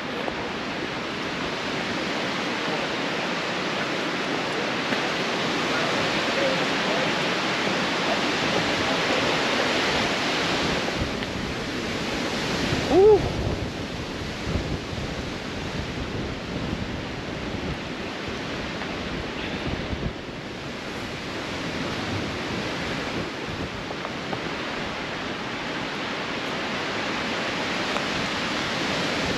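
Strong wind pounding and buffeting the microphone, swelling and easing in gusts. About thirteen seconds in, a brief pitched sound rising and falling in pitch stands out above the wind.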